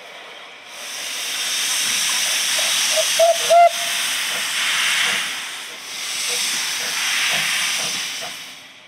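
Steam tank locomotive 752, a Barton Wright 0-6-0 saddle tank, blowing steam from its cylinder drain cocks as it moves off slowly: a loud hiss in two long swells. A few short, high squeals sound about a third of the way in.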